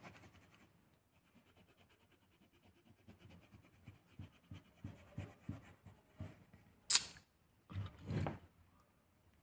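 Coloured pencils being handled on a table: faint small clicks and scratches, a sharp tap about seven seconds in, then a short scraping rustle a second later.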